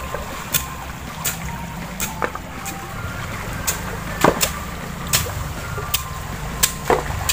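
Shallow stream water running, with sharp splashes and knocks, roughly one a second, from feet wading through the water and hands working in the streambed.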